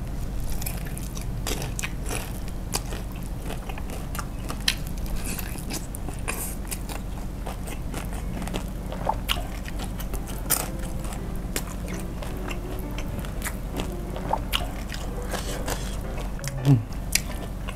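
Close-up biting and chewing of crispy fried chicken in a spicy sauce: irregular sharp crunches of the crust along with chewing.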